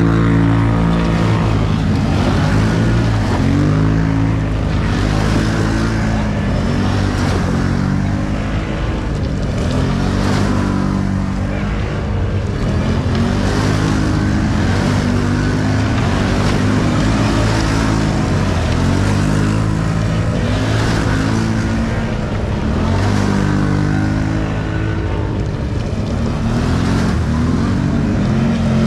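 ATV engine running hard under load, its pitch rising and falling every second or two as the throttle is worked.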